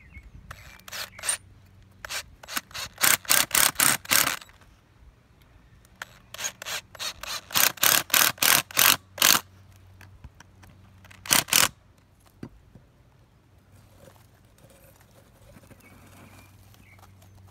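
Craftsman cordless drill driving screws into a small wooden block, running in several runs of rapid pulses with pauses between; the longest run lasts about three seconds.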